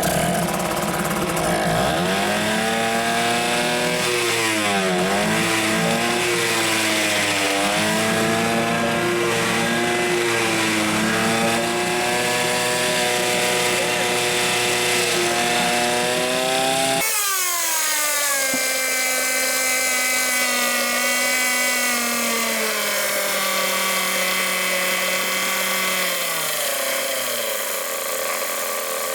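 Hangkai 6.0 two-stroke outboard motor running on its trial start after a broken reed valve petal was replaced, its speed rising and falling unevenly. After an abrupt break partway through it runs more steadily, its speed dropping in two steps near the end.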